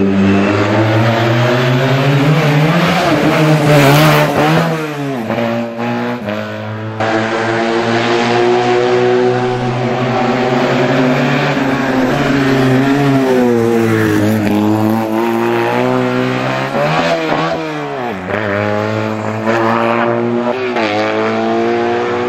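Engine of a race-prepared classic Fiat 500 revving hard as it accelerates through a slalom course. Its pitch climbs repeatedly and falls back sharply about five, fourteen and eighteen seconds in as it slows for the bends.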